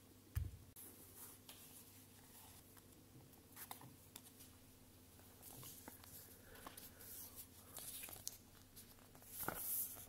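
Quiet hand-handling sounds: a soft thump about half a second in, then paper rustling as a printed booklet is handled and its pages opened, growing busier and loudest near the end.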